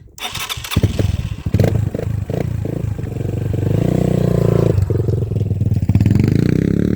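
Dirt bike engine revving and pulling away under hard acceleration, its pitch climbing. It dips briefly about five seconds in, then climbs again.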